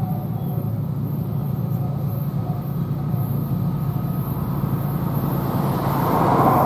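Diesel freight locomotives approaching on the line, a steady low engine drone that grows louder toward the end as the train nears.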